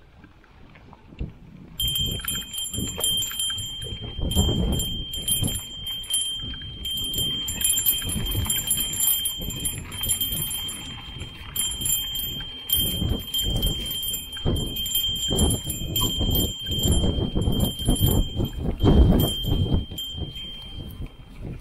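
Mountain bike rolling over a rough dirt singletrack, with bumpy tyre and trail rumble and wind on the microphone. From about two seconds in, a steady high-pitched ringing tone comes from the bike and drops out for short moments now and then.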